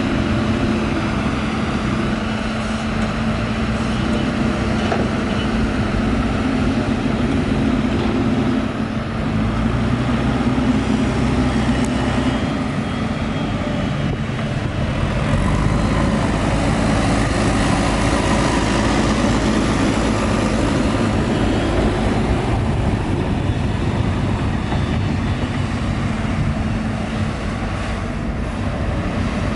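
Liugong 922D crawler excavator's diesel engine running steadily as the machine works. Its sound dips and picks up again a little around nine and fifteen seconds in.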